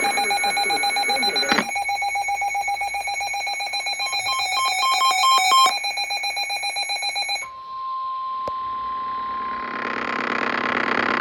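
Emergency Alert System data tones: a fast, warbling string of electronic beeps for about seven and a half seconds. It then switches to a single steady tone of about 1 kHz, the weather radio warning tone, for about two and a half seconds. After that comes a rising hiss of static.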